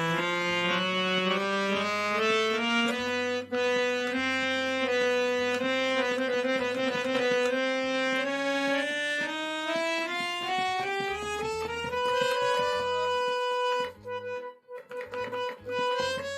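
Harmonium reeds sounding as keys are held and played in turn, a sustained reedy tone with overlapping notes that breaks into short separate notes near the end. The keys are being played to find which reed is buzzing.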